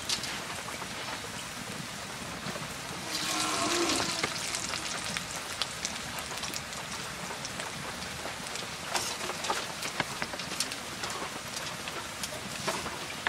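Ash gourd leaf pakoras deep-frying in hot oil in a pan: steady sizzling with frequent small crackles and pops, swelling louder for about a second around three seconds in.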